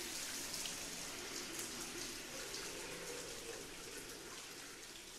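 Shower running: a steady spray of water that grows gradually quieter.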